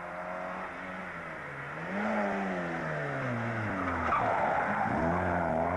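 Rally car's engine revving hard as the car approaches, getting louder, its note climbing and dropping with gear changes and lifting off for a bend. The tyres squeal briefly around four to five seconds in.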